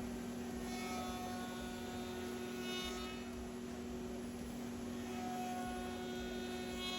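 CNC router running with a steady hum, with a higher whine swelling in twice: about a second in and again for the last two seconds.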